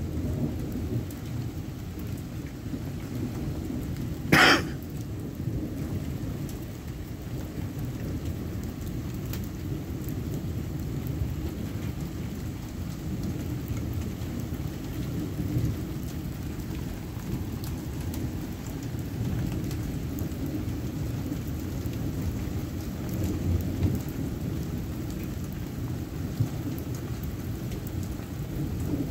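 Thunderstorm: rain falling steadily under low, rolling thunder rumble that swells and fades. A single sharp crack about four seconds in is the loudest sound.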